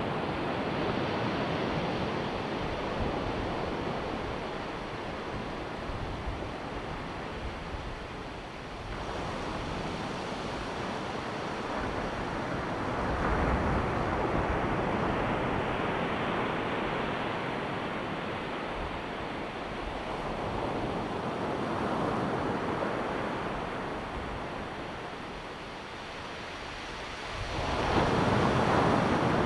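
Ocean surf breaking on a beach: a continuous wash of waves that swells and falls every few seconds, with a louder surge near the end. Wind is on the microphone.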